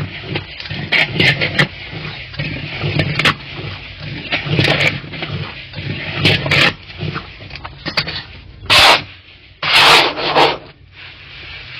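Grain being parched in a wide iron pan over a clay oven, stirred with a metal scraper: repeated scraping, rubbing strokes of the scraper and grain across the pan, with two louder, longer rasping strokes near the end.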